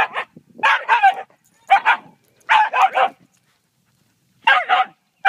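Shiba Inu barking and yelping in harsh, loud volleys, about five in a row, with a pause of about a second before the last.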